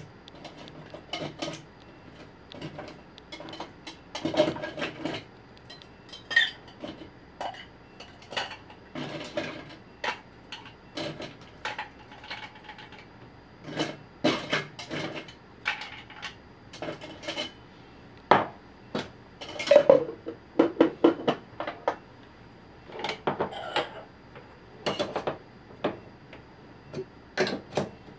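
Irregular clinks and knocks of glass bottles and metal bar tools being picked up, handled and set down on a counter while a cocktail is mixed.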